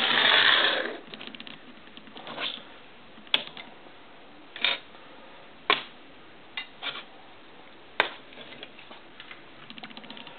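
Plastic G1 Transformers toy vehicles being set down one at a time on a wooden desk: a string of separate plastic clicks and knocks a second or so apart, after a short rushing noise at the start.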